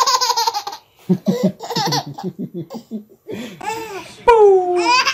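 A baby laughing hard: a long high laugh, then quick repeated bursts of laughter, then long squeals that fall in pitch near the end.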